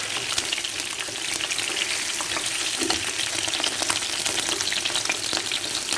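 Hot oil sizzling and crackling around fish-paste-wrapped tofu rolls being fried and scooped out of the pan. It stops abruptly at the very end.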